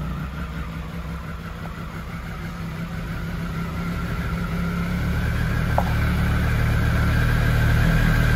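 Triumph Speed Triple 1050 RS's three-cylinder engine idling through its Arrow aftermarket silencer, a steady low note that grows gradually louder.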